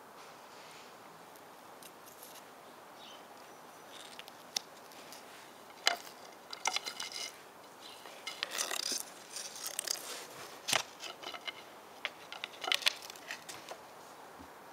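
Irregular scrapes, clicks and crackles of a dry wooden stick rubbed and tapped against weathered wooden table boards and a dog's muzzle, starting about four seconds in and bunching up through the middle, with a few sharp clicks.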